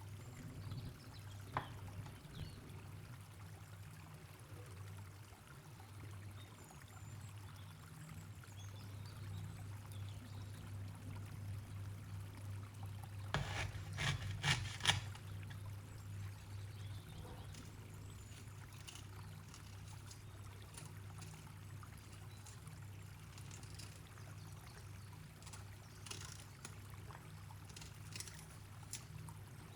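Faint kitchen preparation sounds over a steady low hum: scattered light clicks and knocks, with a quick cluster of sharp knocks about halfway through.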